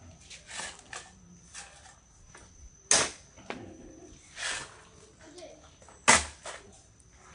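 Wood fire burning in an earth pit, crackling with small clicks and two loud sharp pops, about three seconds apart.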